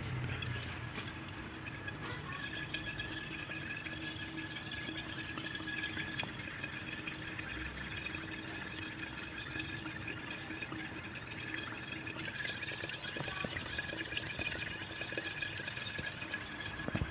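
R134a refrigerant escaping from a car's AC system through the manifold's discharge hose into a water-filled bottle, bubbling and hissing steadily, a little louder near the end. It is the sound of the system being emptied, with the high side nearly down to zero and the low side still venting.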